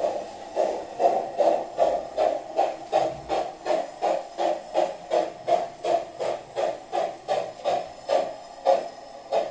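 Recorded steam-locomotive chuffing from the mXion SX6 sound module in an LGB 20753 'kleine Dicke' garden-scale tank engine as it runs: steady exhaust beats about three a second, spacing out a little near the end.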